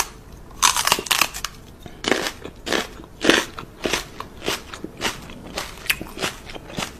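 Crunchy food being bitten and chewed close to the microphone: a louder bite about a second in, then a steady crunch just under twice a second.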